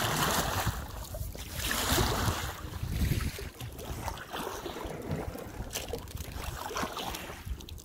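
Wind buffeting the microphone over water splashing and lapping around a small paddled boat, rising and falling in uneven swells.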